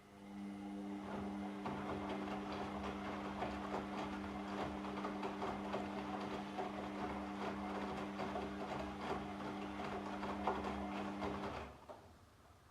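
Washing machine motor turning the drum in a wash cycle. A steady, even-pitched motor hum runs over the churning of the load inside, starting at once and stopping sharply about eleven and a half seconds in.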